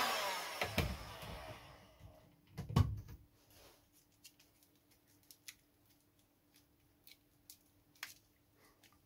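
A small heat gun's blower winding down and fading out over about two seconds after it is switched off. A thump follows, then scattered light clicks and taps as the heat-shrunk battery pack is handled.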